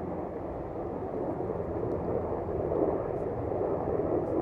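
Strong wind buffeting the microphone: a steady rough rushing noise that swells a little with gusts.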